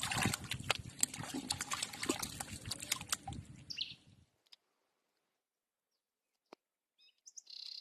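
Water sloshing and splashing with clicking handling noises, which cut off abruptly about four seconds in. A few short high sounds follow near the end.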